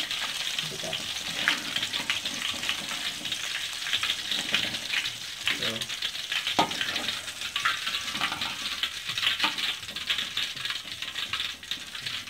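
Battered shrimp sizzling in hot frying oil as they are lifted out with a metal spatula into a wire strainer, with a few sharp clinks and scrapes of the metal utensils against the pan.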